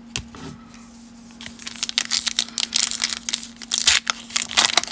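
Wrapper of a 2020 Topps Update baseball card pack being torn open and crinkled by hand. The dense crackling starts about a second in.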